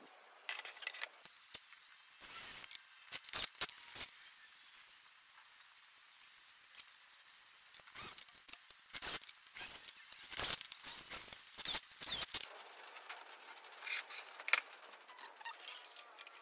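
Irregular small clicks, taps and scrapes of parts being handled and fastened on a wooden CNC frame, in scattered clusters with no steady motor running.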